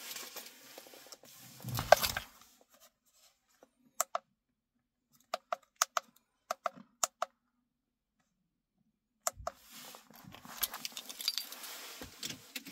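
Rustling handling noise, loudest about two seconds in, then a run of short, sharp clicks from the buttons of a handheld battery tester being pressed to step through its menus. Near the end, car keys jangle.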